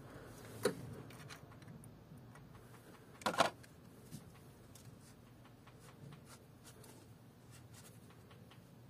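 Quiet workshop handling noises of tools and parts: a sharp click under a second in, a louder brief clatter of knocks a little past three seconds, and faint small clicks and rustling in between.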